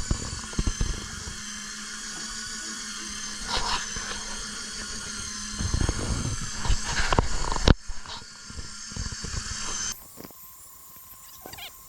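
A steady, high-pitched mechanical whine made of several tones at once, over a lower hum, with scattered knocks and thuds. The sound changes abruptly twice, near the end dropping to a quieter, thinner whine.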